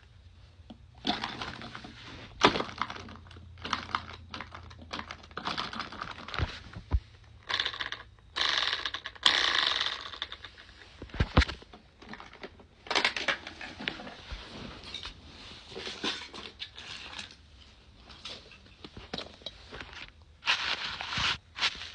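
Lego engine model clicking and clattering irregularly, with a faint low hum for the first several seconds and a stretch of hiss about eight seconds in.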